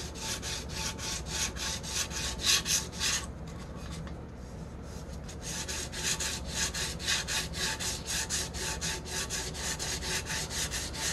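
400-grit sandpaper rubbed lightly by hand in quick back-and-forth strokes over the wet, water-based polyurethane top coat of a glitter tumbler, about three or four strokes a second. The strokes pause for about two seconds a little after three seconds in. This is wet sanding to level the bumpy clear coat toward a smooth surface.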